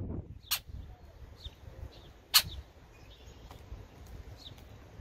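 Birds calling outdoors with short, high, falling chirps every second or so, and two sharp clicks, the second, about two and a half seconds in, the loudest sound.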